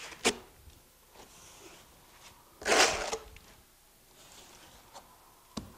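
A plastering trowel scrapes wet EIFS base coat once, for about half a second midway, with a few light clicks and taps of the tools around it.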